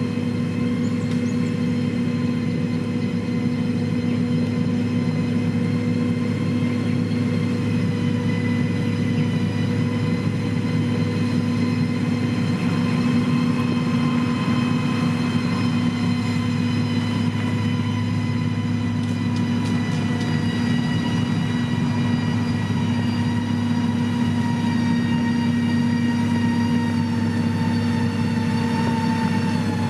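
Heavy diesel engine of a motor grader running steadily, a continuous engine drone with a thin whine above it. Its pitch dips slightly near the end.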